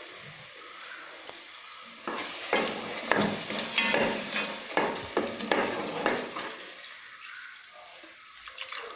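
A spoon stirring and scraping thick jackfruit paste as it fries in ghee in a pan, over a low sizzle. A run of quick scraping strokes begins about two seconds in and eases off near the end.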